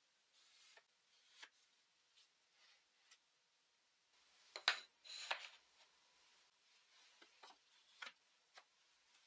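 Faint handling noises of a wooden stick being set and shifted in an MDF jig: scattered light taps and rubs, the loudest pair about five seconds in. The router is not running.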